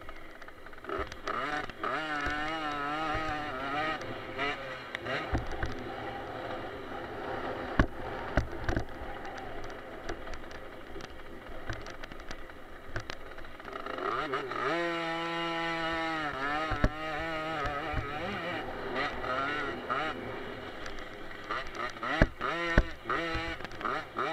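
Small two-stroke 50cc motocross bike engine running hard, its pitch rising and falling with the throttle, holding one steady high note for a couple of seconds past the middle. Knocks and rattles come as the bike hits bumps on the dirt track.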